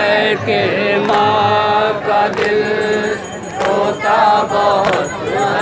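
Men's voices chanting a nauha, the Shia lament of Muharram, in long held melodic lines that bend and waver in pitch. A few sharp slaps cut through the chanting at irregular moments.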